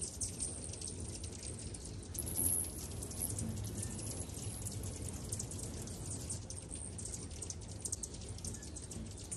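Many hummingbirds chipping at feeders: a steady patter of short, high chips, with a louder squeaky chatter about two and a half seconds in, over a low steady hum.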